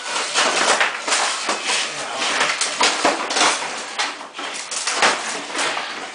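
Demolition of a house wall: a dense, irregular run of sharp knocks and clattering as studs, boards and siding are broken out and fall, thinning out near the end.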